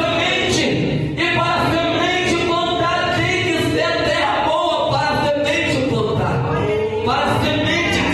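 Voices singing a gospel hymn together, with a choir-like sound.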